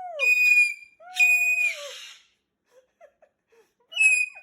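Cockatoo screeching: two loud, shrill, whistle-like calls in the first two seconds, the second breaking into a harsh rasp, then a few faint soft chirps and one more short shrill call near the end.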